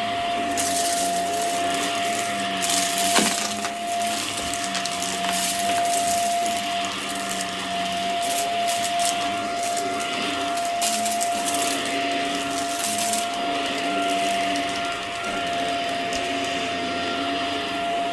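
Hoover vacuum cleaner running over a rug, with a steady high motor whine and a crunch of crackles as grit is sucked up through the carpet pile.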